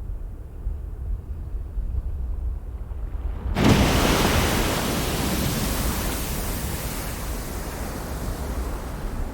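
Erupting volcano: a low rumble, then about three and a half seconds in a loud, even rushing roar starts suddenly and slowly eases off.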